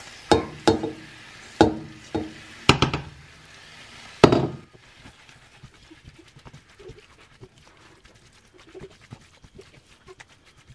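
A metal pot knocks and clinks against a non-stick frying pan about six times as cooked chard and carrots are tipped into it, the last knock the loudest. Then a silicone spatula stirs the vegetables with soft scraping and a faint crackling sizzle.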